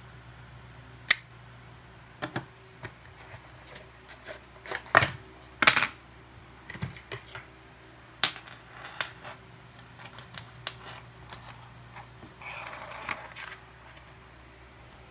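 Scattered sharp clicks and taps of hands handling a plastic earbud charging case, its cable and a small cardboard box, with a brief rustle near the end.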